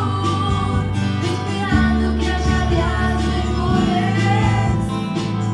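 Live band music from a song performance, with a sung melody line over sustained bass notes.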